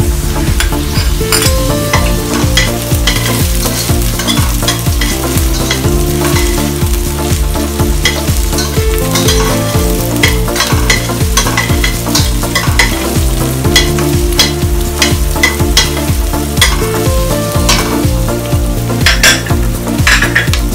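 Garlic, onion and ginger sizzling in hot oil in a stainless steel pot, with a spatula stirring and scraping the pot bottom in frequent sharp clicks.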